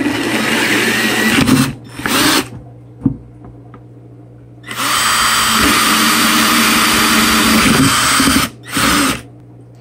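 Power drill spinning a hole saw through a plastic bucket lid, cutting the hole for a half-inch bulkhead. It runs in stop-start bursts: about a second and a half, a short burst, then a longer cut of nearly four seconds, and one more short burst near the end.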